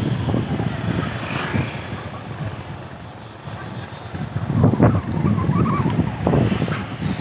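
Wind buffeting the microphone on a moving motorbike, an uneven low rumble in gusts mixed with road noise. It eases about three seconds in and picks up again a second or so later.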